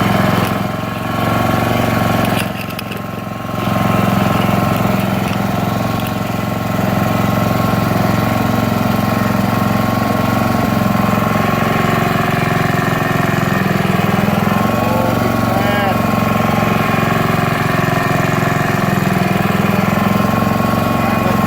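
Honda Harmony II walk-behind lawn mower's engine running steadily, now that its cleaned carburettor lets it start and run. The engine level dips briefly twice in the first few seconds.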